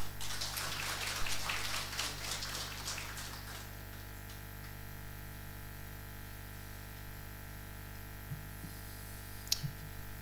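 Audience applauding briefly, a dense patter of many hands that dies away after about three and a half seconds. A steady electrical mains hum remains underneath.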